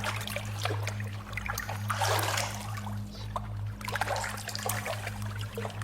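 Layered sound-effects mix of water dripping and trickling, scattered drops over a steady low hum, with a louder watery stretch about two seconds in, given reverb for a large space.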